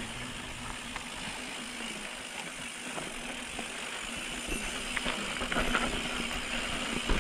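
Mountain bike rolling down a rocky dirt trail: a steady hiss of tyre noise with the frame and parts rattling and clicking over bumps, the clatter growing louder and busier in the second half.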